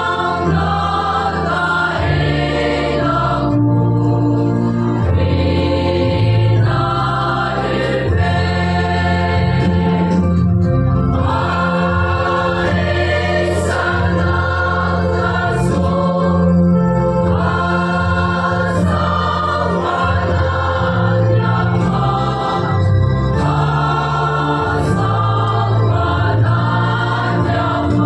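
A church choir of mostly women's voices singing in harmony, phrase after phrase, over sustained low notes that change every second or two.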